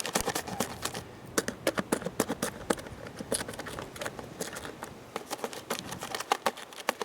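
Rapid, irregular clicks and taps, several a second, with no steady tone underneath.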